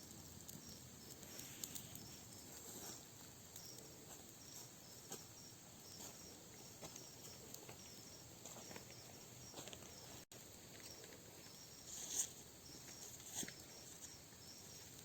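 Faint night insects, crickets, chirping steadily in a high pulsing trill, with scattered small crackles and pops from a wood campfire; the loudest pop comes about twelve seconds in.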